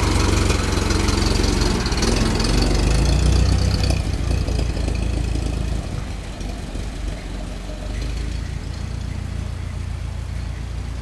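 1925 Ford Model T's 177 cubic inch (2.9 L) four-cylinder engine running, louder for the first few seconds and then settling lower.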